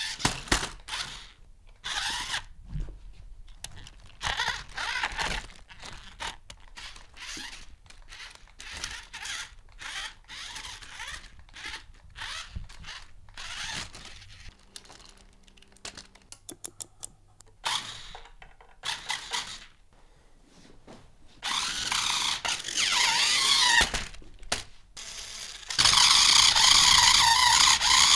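Green six-wheeled toy RC rock-crawler truck: scattered clicks and rattles of handling, then near the end its electric drive motors and plastic gears whirring steadily and loudly, run from wires at 4.3 volts.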